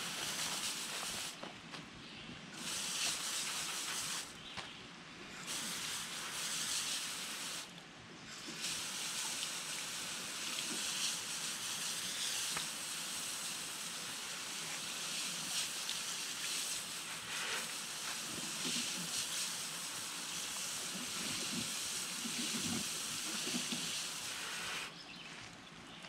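Water spraying from a garden-hose nozzle onto a truck's front tire to wash off dirt, a steady hiss. There are three short bursts in the first eight seconds, then one long continuous spray that stops about a second before the end.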